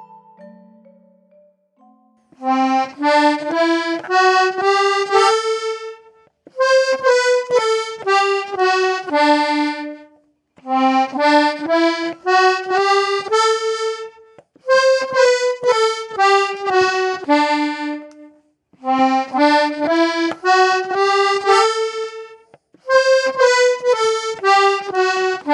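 Accordion playing simple stepwise melodies, alternating a rising run of notes and a falling run, six phrases in all with short pauses between: breathing melodies, the rising one paced for breathing in and the falling one for breathing out.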